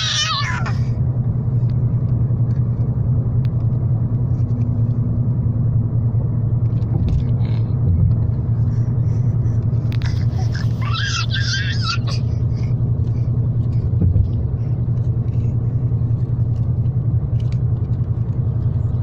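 Steady low road and engine rumble inside a moving car's cabin, with a baby's high-pitched babbling cries twice: briefly right at the start and again for a second or two about ten seconds in.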